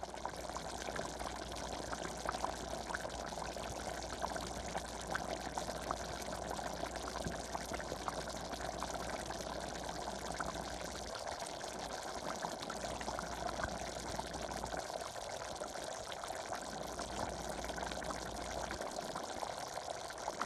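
Pot of Guinness Irish stew at a heavy rolling boil, bubbling and popping steadily as it cooks down to thicken.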